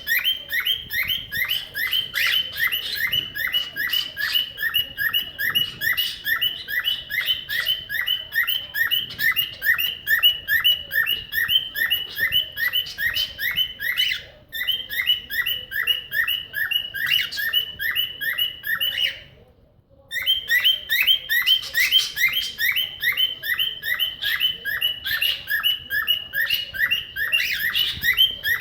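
Cockatiel mimicking a car alarm: a fast, even string of short repeated chirps, about four a second, broken briefly about fourteen seconds in and pausing for a second about nineteen seconds in.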